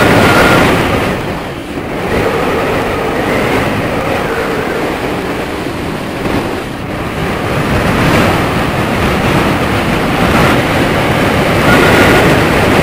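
Wind rushing over the microphone during a fast sandboard descent down a sand dune, with the board hissing over the sand. The noise eases briefly twice and swells again.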